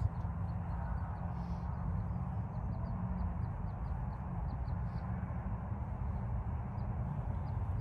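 Wind buffeting the microphone with a steady low rumble, and faint high chirps of small birds now and then.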